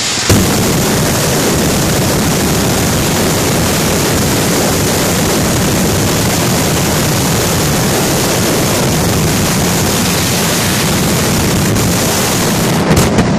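Mascletà firecracker barrage at its closing 'terremoto': ground-level firecrackers going off so densely that they merge into one continuous deafening roar, starting suddenly just after the start. Near the end it breaks up into separate loud bangs.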